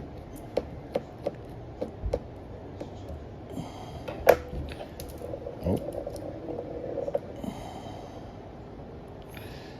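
Small clicks and taps of a screwdriver and tools on a Samsung Galaxy A15's frame and internal parts as its screws are taken out, scattered and irregular, with one sharper click about four seconds in.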